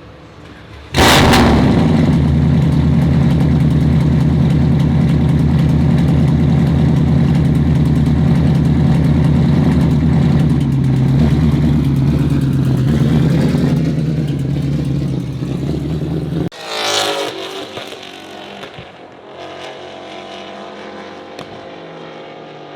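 Race car engine running hard at high, steady revs for about fifteen seconds, starting suddenly and cutting off abruptly. A car then passes by with its pitch dropping, and a quieter engine note follows.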